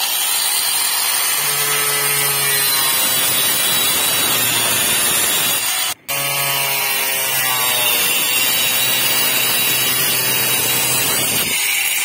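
Angle grinder fitted with a toothed circular saw blade, cutting through the wall of a plastic water tank. Its motor note falls as the blade bites in, and the sound cuts out for a split second about halfway through.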